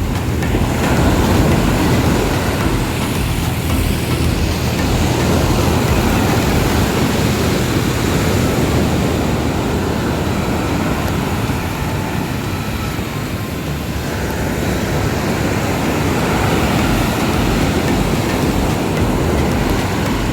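Ocean surf breaking, with wind buffeting the microphone: a steady rushing roar, heavy in the low end, that slowly swells and eases.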